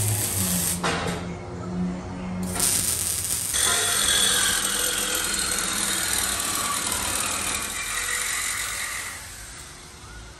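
Arc welding on a car's exhaust pipe, a crackling hiss that stops about a second in, starts again after two and a half seconds and fades out near the end.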